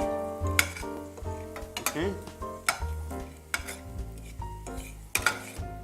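Egg omelette with chicken frying in a pan, sizzling, with a spatula stirring and knocking against the pan several times.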